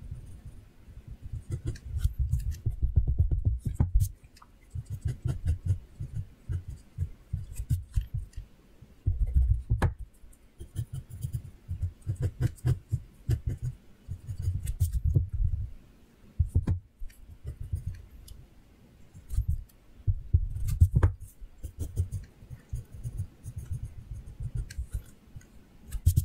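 Pencil drawing on paper close to the microphone: irregular bursts of quick scratching strokes, each a second or two long and heavy in the low end, with a few sharp ticks between them.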